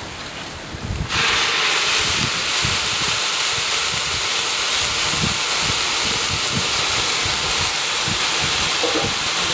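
Water poured into a hot pan of fried raw jackfruit and coconut paste, hissing with steam. The hiss starts suddenly about a second in and holds steady.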